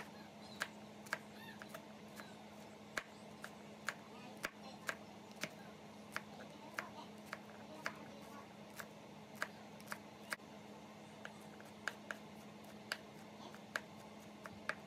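Knife chopping green onions on a wooden cutting board: sharp taps of the blade against the board, about two a second at an uneven pace, over a low steady hum.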